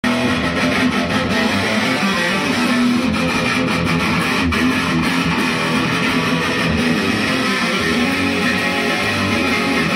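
Electric guitar music playing continuously.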